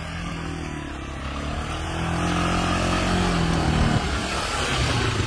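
Motor vehicle engine speeding up, its pitch climbing for about four seconds, then dropping to a lower steady note.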